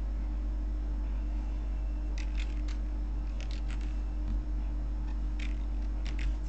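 Computer keyboard keys tapped in a few short clusters of quick clicks, starting about two seconds in, over a steady low electrical hum.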